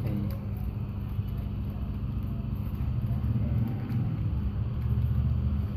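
Steady low background rumble, with a couple of faint clicks as pieces of a cardboard cigarette box are handled.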